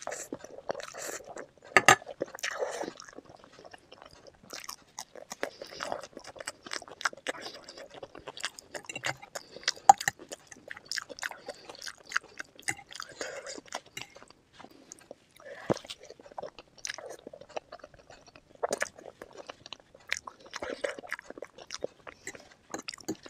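Close-miked chewing and biting through spicy chicken-feet curry, noodles and green chillies: irregular crunches and clicks throughout, with a couple of louder sharp crunches about two seconds and ten seconds in.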